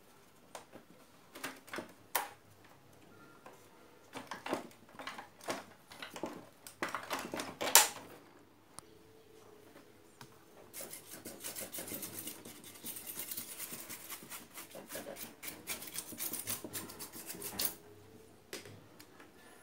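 A CRT TV's main circuit board and plastic chassis being handled and tilted up: irregular clicks, knocks and clatter, the loudest knock about eight seconds in. This is followed by about seven seconds of continuous scratchy rubbing.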